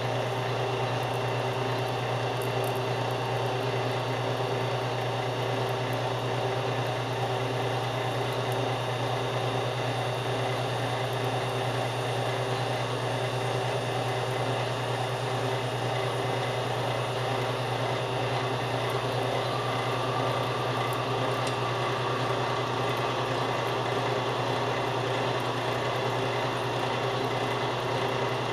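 Metal lathe running at about 1190 RPM with the power feed taking a cut on a stainless steel pin: a steady motor and gear hum. A faint higher tone joins about two-thirds of the way through.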